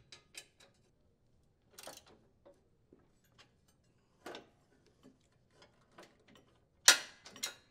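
Socket ratchet clicking in scattered ticks while a mounting nut is tightened on a riding mower's steering plate assembly. Two louder metal clinks come near the end.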